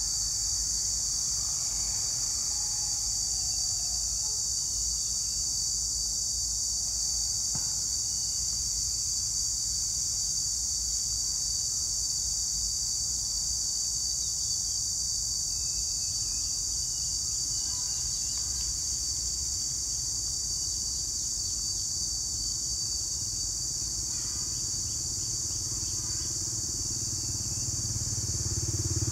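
Insects droning steadily at a high, even pitch over a low background rumble. Near the end a motorcycle engine approaches and grows louder.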